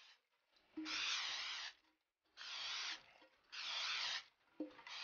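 Aerosol cooking spray hissing in four short bursts, each under a second, greasing a metal cake pan. Several bursts begin with a small click of the nozzle.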